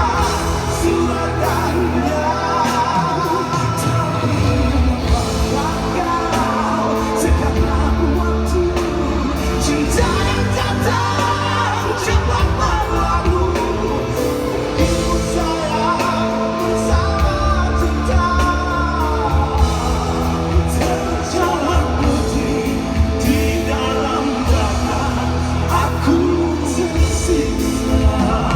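Live pop-rock band performing with a singer singing the melody over a steady bass line and full backing band.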